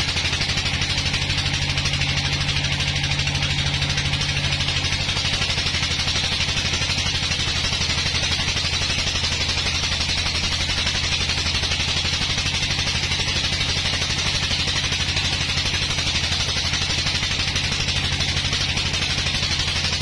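Vertical band sawmill running steadily as its blade resaws a thick slab of very hard wood. A low machine drone with a fast, even pulse runs under a constant hiss of the cut.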